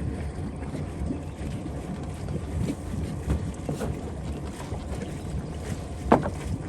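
Wind rumbling on the microphone over water, with irregular soft knocks and one short sharp squeak about six seconds in.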